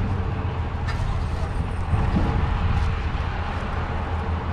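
Steady low rumble of a car's engine and tyres, heard from inside the cabin while it drives slowly.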